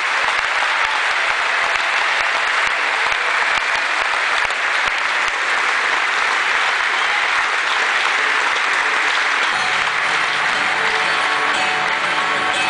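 Audience applauding, a dense steady clatter of clapping. About nine and a half seconds in, guitar notes begin to sound under the applause as the song starts.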